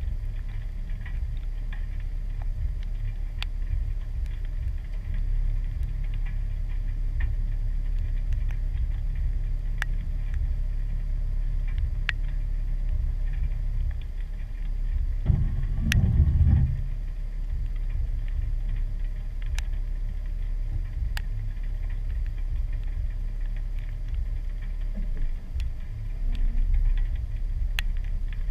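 2015 Jeep Wrangler Sport's 3.6-litre V6 running at low revs as the Jeep crawls along a rocky trail, with scattered sharp ticks and a brief louder rumble about halfway through.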